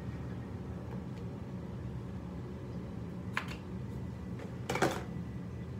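Steady low room hum, with two brief rustling handling noises about three and a half and five seconds in, the second one louder.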